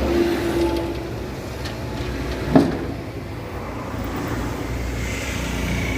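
JCB excavator's diesel engine running steadily, with one sharp knock about two and a half seconds in.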